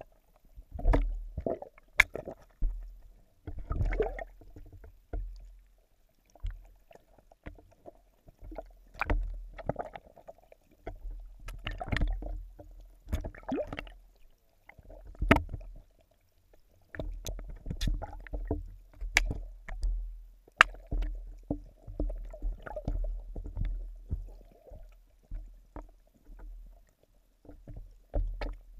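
Muffled underwater sound picked up by a camera submerged in a fish pond: irregular knocks and sharp clicks against the camera over low, coming-and-going water sloshing.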